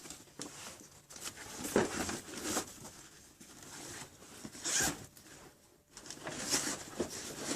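A soft carry case being handled and unzipped: several short bursts of zipping and rustling.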